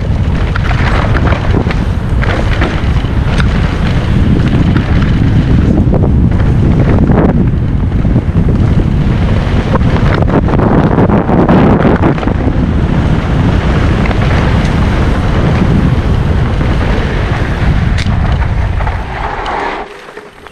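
Wind buffeting the microphone of a helmet-mounted camera on a fast e-mountain-bike descent, mixed with the rumble of the tyres over the dirt trail and a few sharp knocks from the bike. The noise drops off suddenly near the end as the bike slows.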